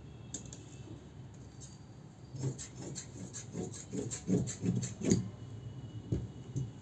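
Large tailor's scissors cutting through fabric on a table: a quick run of crunchy snipping strokes, about four a second, starting about two seconds in and stopping after about three seconds. A single soft knock follows near the end.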